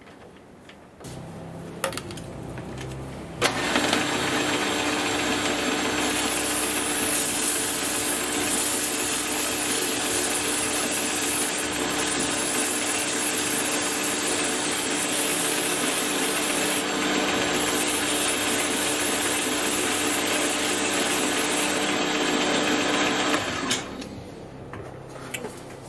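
A machine's motor starts about a second in. From about three and a half seconds a loud, steady hissing rasp of abrasive polishing on a spinning steel hinge pin joins it, and it stops near the end.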